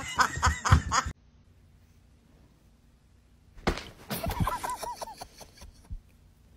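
A person laughing in quick short bursts, cut off abruptly about a second in; after a silent gap of a couple of seconds, another string of short bursts of laughter.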